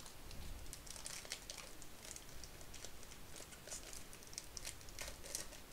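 Foil wrapper of a Topps baseball card pack crinkling in irregular crackles as the pack is opened by hand.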